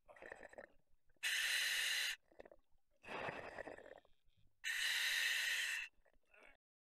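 Scuba diver breathing through the regulator of an OTS Guardian full face mask: two breath cycles, each a rougher, uneven stretch followed by a steady hiss about a second long.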